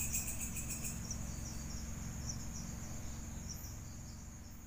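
Insects chirping in a high, rapidly pulsing trill over a faint low steady hum, fading out gradually.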